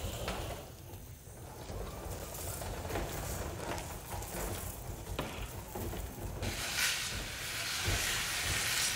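Retractable hose reel of a Giraffe Tools Grandfalls wall-mounted pressure washer winding its high-pressure hose back in, with a low rumble as the reel turns. A louder hiss comes in over the last couple of seconds as the hose runs in through the hand guiding it.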